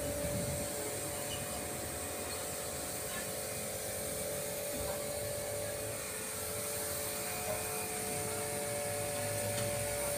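Clif Max domestic electric car washer running under load, its pump motor giving a steady hum while the gun sprays a high-pressure jet of water with a constant hiss.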